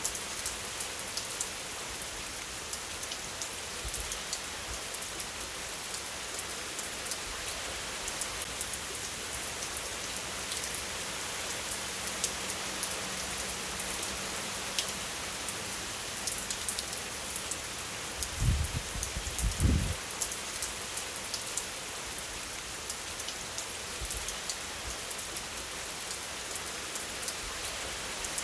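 Steady rain falling, a dense hiss with many fine, crisp drop ticks. A few low thumps come about two-thirds of the way through.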